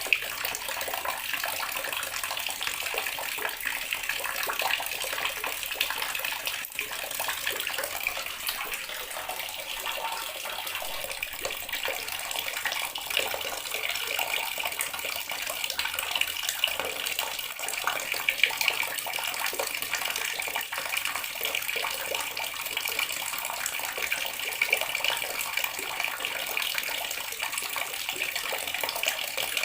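Water running steadily from a tap, splashing and trickling without pause.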